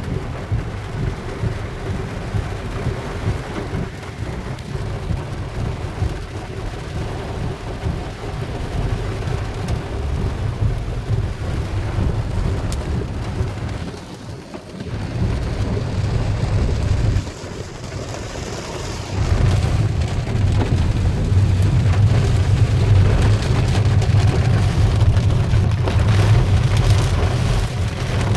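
A heavy downpour with hail: a dense, steady patter over a strong low rumble. The sound dips briefly about halfway through and again a few seconds later, then grows louder for the last third.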